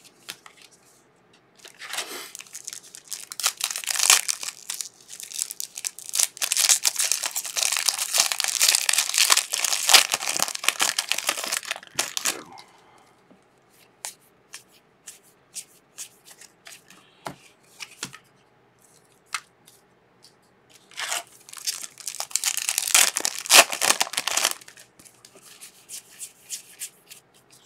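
A trading-card pack being torn open, its wrapper crinkling, as the cards are slid and flicked through by hand. The crackling comes in two long stretches, a longer one early on and a shorter one about two thirds of the way through, with soft card ticks in between.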